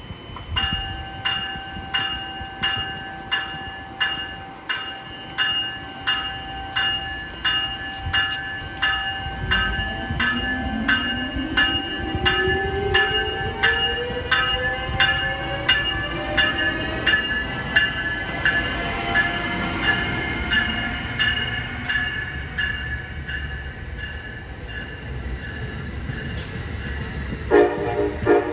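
Amtrak Siemens ACS-64 electric locomotive pulling out of a station. Its bell rings steadily, about a stroke and a half per second, and from about a third of the way in its traction motors whine, rising in pitch as the train gathers speed. Near the end a horn sounds.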